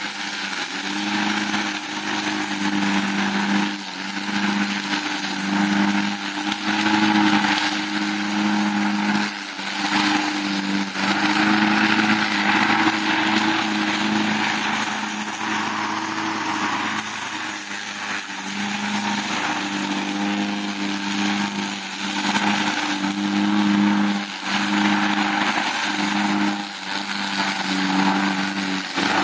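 Walk-behind bagging lawn mower running, its engine going steadily under load as the blade cuts through a dense bed of liriope (monkey grass). The engine note falls and picks up again every few seconds.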